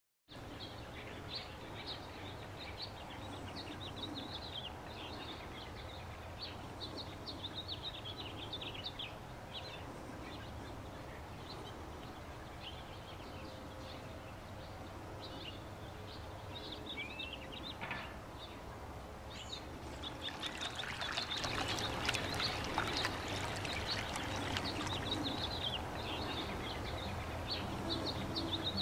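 Songbirds chirping and calling over a steady background. About two-thirds of the way through, the louder rushing and splashing of running water joins them.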